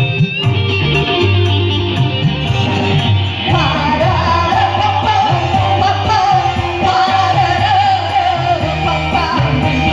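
Live singing over a guitar-led band accompaniment: the instruments play alone at first, and a solo voice comes in singing about three and a half seconds in. The singer is still hoarse from a flu cough.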